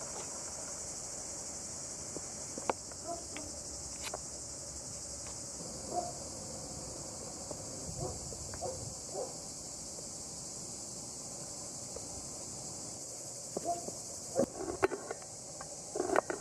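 A steady, high-pitched insect chorus drones throughout. Scattered short clicks and knocks cut across it, gathering and growing loudest near the end.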